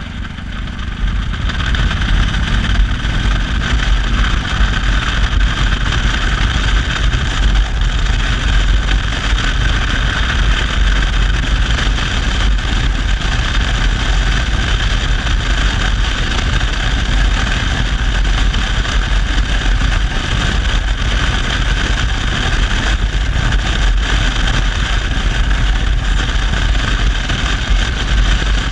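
An engine running steadily with a constant loud rattle.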